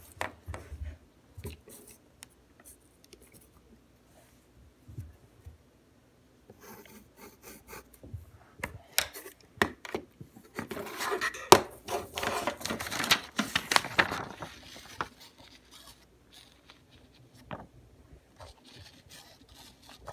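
Pencil scratching and rubbing on paper on a tabletop, with scattered taps and clicks. The scratching is densest and loudest in the middle stretch.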